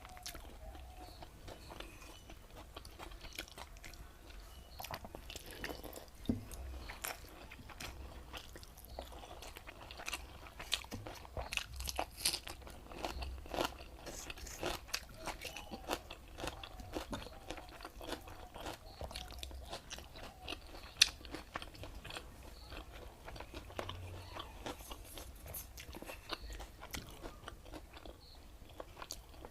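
Close-up eating sounds of a meal of pakhala (water-soaked rice) with saag and raw onion: irregular chewing, wet mouth clicks and crunches, with one sharper crunch about two-thirds of the way through.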